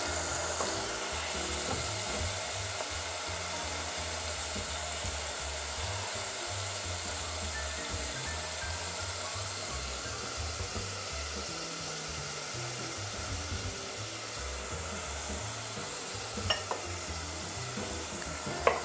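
Chopped onion and celery sizzling steadily in hot oil in a pot, sautéing as the base of a soup. A couple of light knocks of a knife on a cutting board come near the end.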